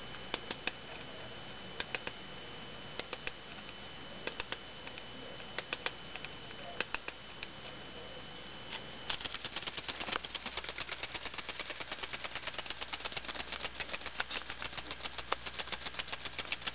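Clockwork of an 1890s Lehmann tinplate crawling beetle toy: short groups of clicks as the spring is wound, then from about nine seconds in the wound mechanism runs with a rapid, steady rattling tick as the toy crawls.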